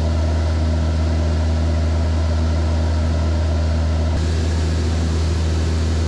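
Cockpit drone of a Van's RV-7 light aircraft's piston engine and propeller running steadily in a climb, with a hiss of airflow over it. About four seconds in, the hiss becomes brighter.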